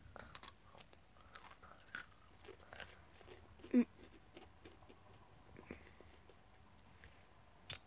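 Faint crunching and chewing of a Pringles crisp. There are sharp crunches through the first few seconds, then softer, sparser chewing.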